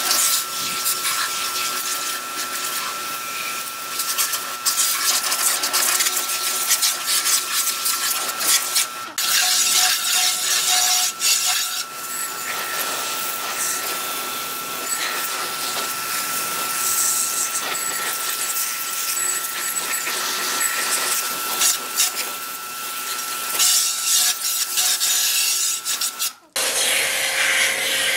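Pressure washer jet hissing and spattering as it hits a scooter's body panels and wheel, with a thin steady whine underneath. The spray breaks off briefly twice, about a third of the way in and near the end.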